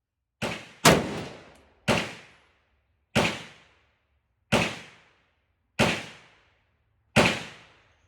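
Seven single gunshots from an AR-15 rifle in 5.56, fired at a steady pace of roughly one every 1.3 seconds, each with a short echoing tail. The first two come less than half a second apart, and the second of them is the loudest.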